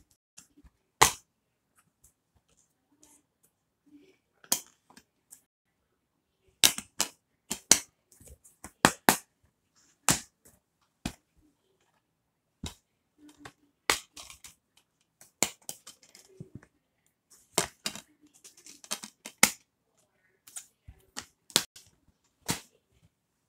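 Plastic DVD cases handled one after another: sharp, irregular clacks and clicks as cases are picked up, turned over and set down on each other, with a short rustle about three-quarters of the way through.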